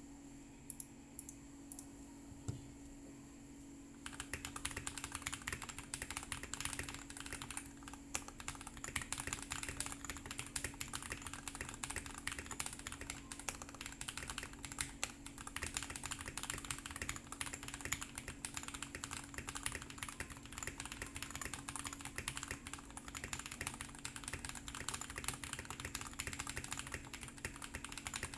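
Tape-modded Keychron C1 mechanical keyboard with Bobaglide tactile switches (Boba U4T stems in Hyperglide housings, 65 g springs) and Taihao keycaps being typed on. A few single key presses at first, then continuous typing from about four seconds in.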